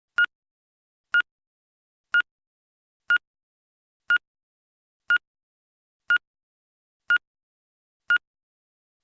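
Game-show sound effect: a short electronic timer beep of one steady pitch, repeated exactly once a second, nine times, with silence between beeps.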